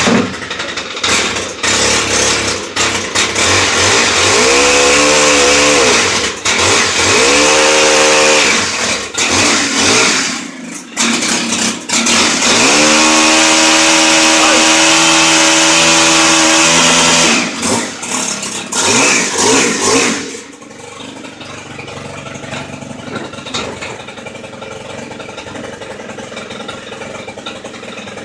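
Stihl string trimmer engine, just cold-started in deep cold (ten below zero), revved up and down in two sweeps and then held at high speed. About 20 seconds in it drops back to a steady idle.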